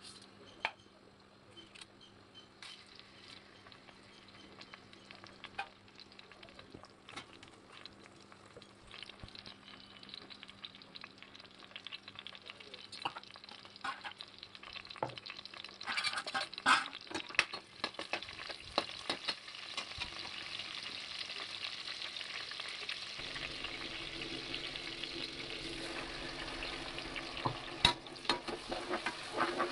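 Whole spices (cinnamon sticks, star anise, bay leaves) crackling in hot oil in a pressure cooker, the scattered pops building into a steady sizzle. About three-quarters of the way in the frying gets louder and fuller as a wet ground paste goes into the oil, with a spoon stirring and clinking against the pot near the end.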